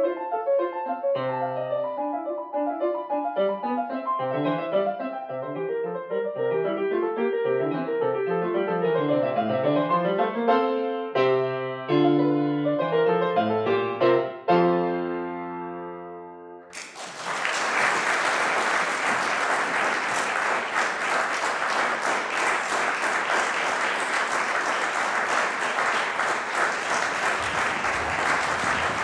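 Grand piano played solo, ending on a few struck chords that ring out and fade. Then, a little past halfway, the audience breaks into steady applause that continues.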